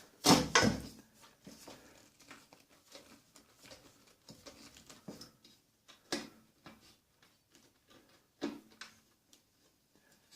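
Light clicks and knocks of metal hand tools and drill bits being handled, with a louder clunk about half a second in and two more about six and eight and a half seconds in.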